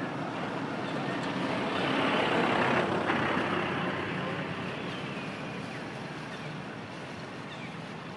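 A motor vehicle passing by, its noise swelling to a peak about two to three seconds in and then fading away.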